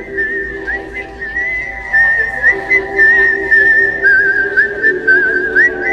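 A high, wavering whistle-like tone that wobbles and slides up in short glides, running without a break over a steady low hum.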